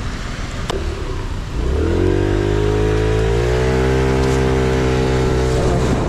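Aprilia SXR 50 scooter's small engine pulling away: after a sharp click and a second and a half of road and wind noise, its pitch rises quickly and then holds nearly steady at high revs.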